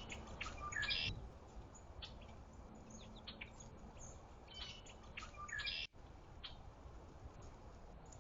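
Small birds at a feeder chirping: short, high chirps in a cluster about a second in and another around five seconds in, with scattered single chirps between, over a faint outdoor background.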